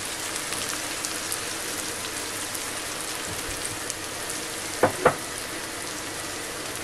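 Chopped bell peppers, onion and garlic sizzling steadily in a frying pan as they sauté. Two short, sharp knocks come close together about five seconds in.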